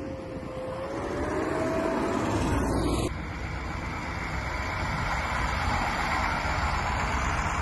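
An eight-wheeled armoured personnel carrier drives past with a steady whine that rises slightly in pitch. About three seconds in the sound cuts to six-wheeled KamAZ army trucks driving past, their diesel engines running.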